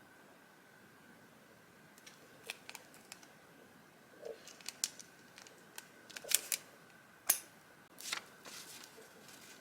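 Paper journaling supplies being handled: after about two quiet seconds come scattered light taps and crinkles, a sharp snap about seven seconds in, and a short paper swish just after eight seconds.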